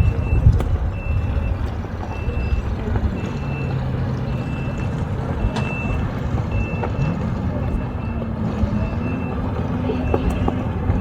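A vehicle's reversing alarm beeping steadily, one short high beep about every second, over a low engine rumble that rises in pitch about two-thirds of the way through.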